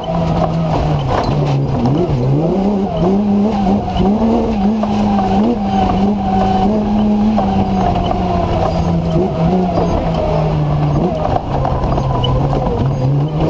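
BMW M3 engine of a TMC off-road racer driven hard, heard from the cockpit, its revs stepping up and down through gear changes and lifts. Scattered knocks and rattles run over it.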